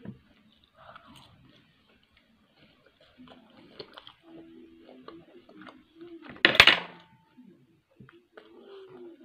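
Mealtime sounds: chewing and a knife and fork clicking and scraping on a plate, with one brief, much louder noise about six and a half seconds in.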